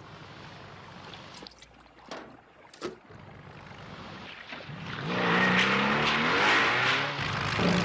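Speedboat engine revving up and rising in pitch as the boat bears down, with a loud rush of water spray, getting loud about five seconds in. A few sharp cracks come before it.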